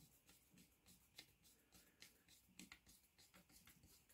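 Faint, irregular small clicks and scrapes of a flat-blade screwdriver tip working in the slotted grip screw of a Mauser K98 bayonet.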